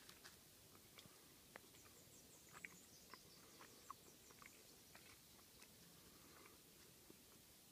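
Faint, irregular small clicks and smacks of a pademelon chewing and licking baked beans from a spoon.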